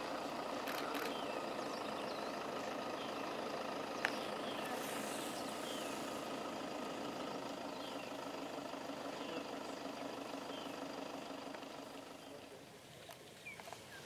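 Safari vehicle's engine idling with a steady hum, with faint high chirps over it and one sharp click about four seconds in. The hum drops away about twelve seconds in.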